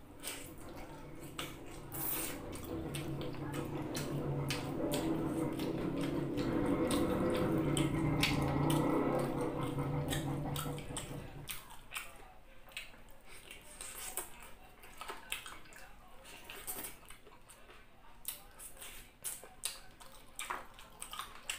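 A person chewing tender chicken meat with scattered wet mouth clicks and lip smacks. For about the first half, a steady rushing sound with a low hum builds up and then fades away.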